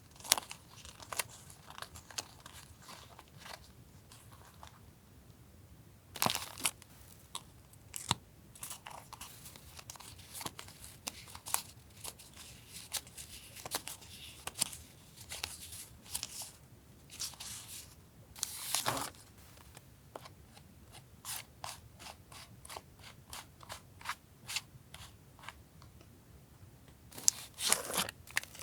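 Paper stationery and its plastic packaging being handled: a run of short crinkles, taps and rustles, with a few longer rustles.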